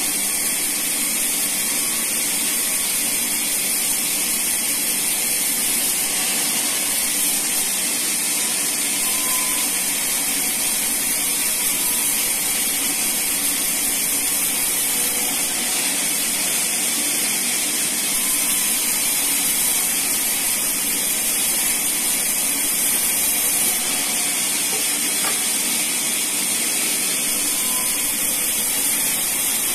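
Sawmill band saw running steadily while a teak beam is fed through its blade, a constant high hiss that does not let up.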